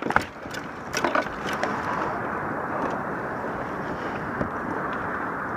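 Steady outdoor noise of wind and water around a small boat, with a few sharp clicks and knocks in the first second and a half from fishing gear being handled.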